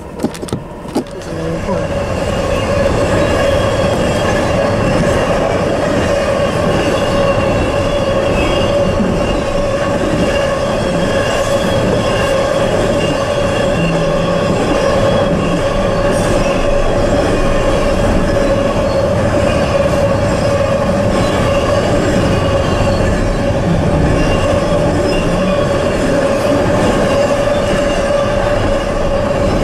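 Norfolk Southern freight train rolling past at a road crossing: a steady rumble of wheels and cars, with a continuous high wheel squeal, starting about two seconds in after a brief cut.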